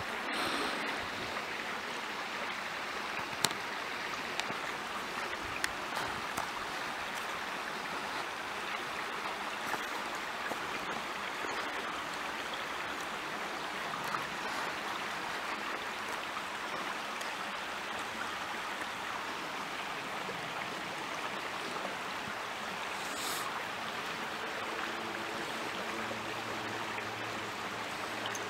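Steady rushing of a small creek, with a few faint clicks early on and a faint low hum coming in near the end.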